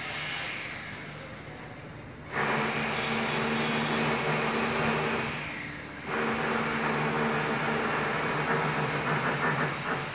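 Loud vehicle noise, mechanical with a low steady hum, that surges in suddenly twice and eases off near the end.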